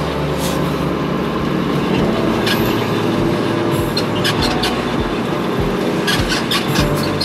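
Coach bus running at highway speed, heard from inside the cab: a steady engine and road hum. A run of sharp clicks and rattles starts about four seconds in and comes again near the end.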